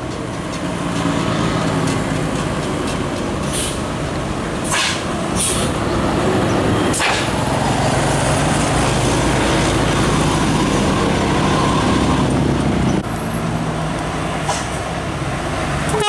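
Tour coach's diesel engine running, getting louder as it passes, with four short hisses of air between about three and a half and seven seconds in; the engine sound drops suddenly about thirteen seconds in.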